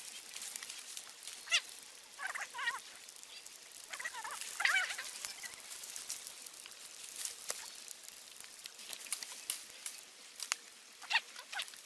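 Wood campfire crackling, with many small sharp pops, and a few short high wavering whistle-like calls over it.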